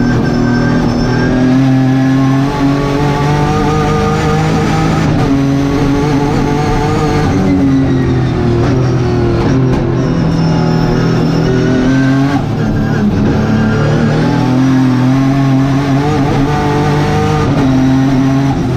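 Race car engine under hard acceleration, its pitch climbing through each gear and dropping at the shifts, heard from inside the car.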